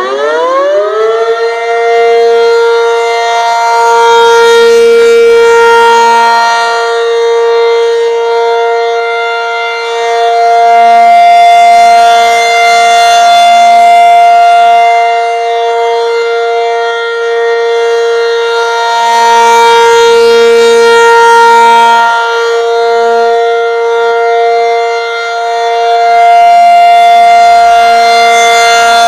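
Federal Signal 500-DH-TT outdoor warning siren winding up to full pitch in the first second, then holding a steady alert tone. Its loudness swells and fades about every eight seconds as the rotating head sweeps past.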